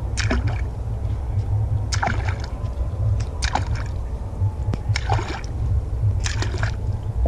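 Saltwater popping cork jerked across the water five times, about every second and a half. Each pop is a short splash and chug from its cup face with a subtle click, over a steady low rumble of water at the microphone, which sits at the water line.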